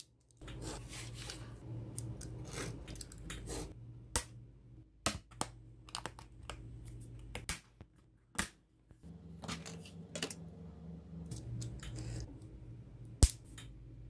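A snap-off utility knife scoring and cutting white craft board, then rustling and handling of the cut card pieces. Several sharp clicks and taps come in between, the loudest a single sharp click near the end.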